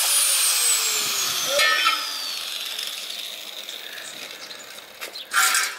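Handheld electric power tool running with a high whine, then switched off and winding down, its pitch falling over about two seconds as the noise fades.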